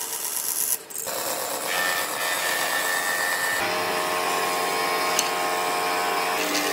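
A band saw cutting through a pine board, stopping abruptly under a second in. Then a power tool's steady hum with several held tones, with a couple of sharp clicks near the end.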